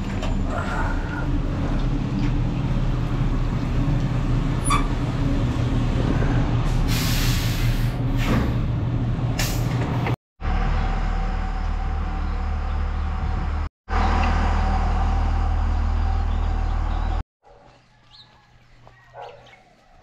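Bus engine running at the curb, a loud steady rumble, with a few short bursts of air-brake hiss a little past the middle. The engine sound cuts off suddenly several times, and the last few seconds drop to faint outdoor sounds.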